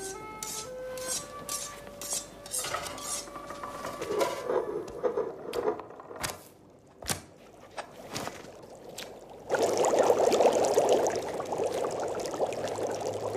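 Cartoon sound effects and music: a few short held musical notes and scattered clicks and clatter, then, from about nine and a half seconds in, a loud steady rushing noise.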